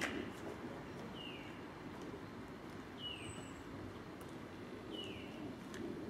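A small bird calling over and over outdoors: a short, high call that falls in pitch, repeated about every one and a half to two seconds over a faint low background hum.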